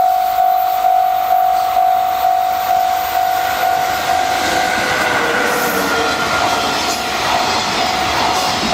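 A Japanese level-crossing warning bell ringing in steady, evenly spaced dings, about two a second. About four to five seconds in, a JR Freight EF66 electric locomotive and its container wagons pass close by. The rush and clatter of the train's wheels then covers the bell.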